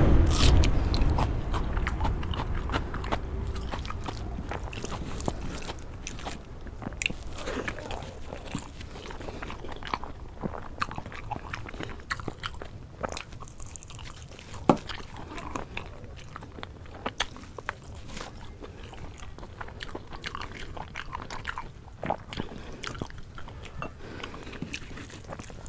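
Close-miked eating: crunching bites into a raw onion, then chewing and many small wet clicks of mouth and fingers working rice and chicken curry. A low rumble at the start fades away over the first few seconds.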